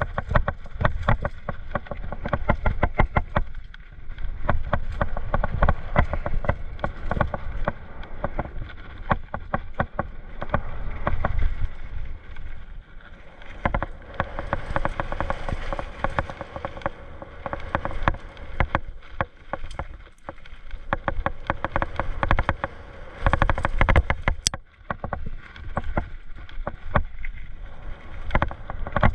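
Mountain bike clattering and rattling down a rough trail, a rapid, uneven run of knocks and rattles from the bike over roots and rocks, with a few brief quieter stretches.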